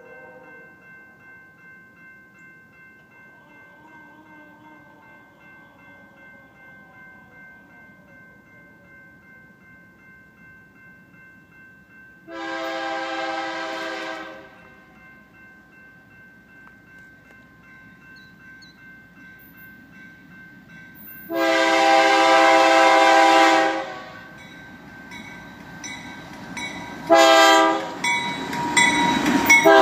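Air horn of an approaching BNSF diesel freight locomotive: two long chord blasts about nine seconds apart, then a short blast near the end. Under them runs a faint, steady rumble of the train that grows louder near the end.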